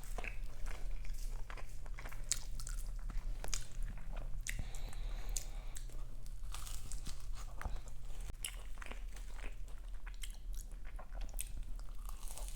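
Close-miked chewing of a meat pie's flaky pastry: irregular crisp crunches and crackles in the mouth, over a steady low electrical hum.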